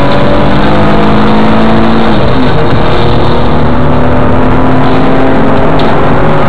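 Car engine and road noise heard from inside the cabin, recorded loud and overdriven. The engine's pitch climbs slowly, drops about two seconds in, then holds and climbs again.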